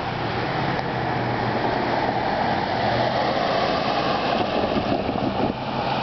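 Steady vehicle noise: a broad rumble with a low, steady engine hum underneath.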